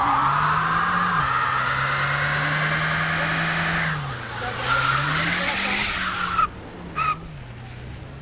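A car pulling away with its tyres squealing. There is one long rising squeal, then a second that cuts off suddenly about six and a half seconds in, then a short chirp, over the engine rising and falling in revs.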